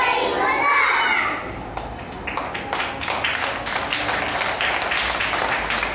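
A roomful of children clapping: scattered claps start about two seconds in and fill out into steady applause. Children's voices are heard before the clapping starts.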